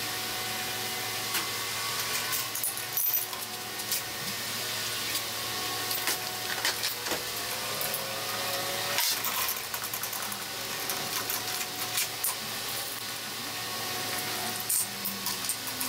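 Scattered metallic clicks and clinks of hand tools working on a motorcycle engine, over a steady hum.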